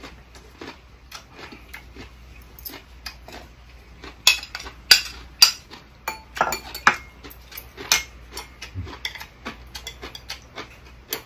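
Metal spoon and chopsticks clinking and scraping against ceramic plates and a bowl as a side dish is scraped from a plate into a rice bowl. Soft ticks at first, then a run of sharp clinks through the middle.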